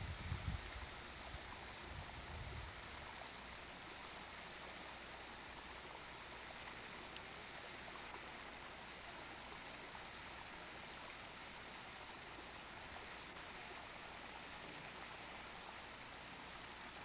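Steady, even rushing hiss, with a few low rumbles in the first couple of seconds.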